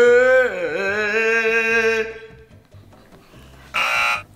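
A person making a long, wavering sung-out vocal noise as a deliberately silly sound, dipping in pitch about two thirds of a second in and stopping about two seconds in. Near the end comes one short, loud burst.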